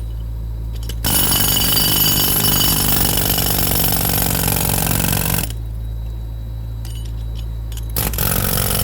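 Jackhammer hammering into concrete in one run of about four seconds, starting about a second in, then a short burst near the end, over a steady low engine hum.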